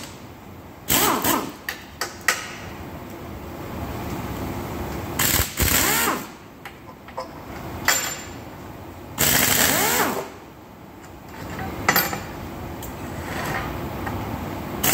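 Impact wrench hammering in about six short bursts, each up to a second long, its pitch rising and falling as it spins up and down while it works the end-bell bolts of a three-phase electric motor. A steady hum runs between the bursts.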